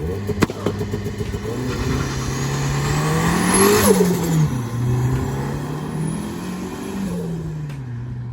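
Chevrolet Corsa pickup's 1.6 turbocharged engine accelerating hard twice, its note climbing and then falling away each time the throttle closes. A loud hissing turbo flutter comes with the first lift-off, about four seconds in.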